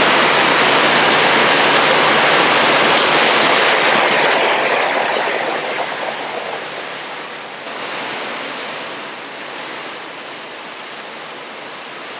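Paper-mill pulper churning water and waste cardboard: a loud steady rush that eases off about five seconds in and settles to a quieter steady rush.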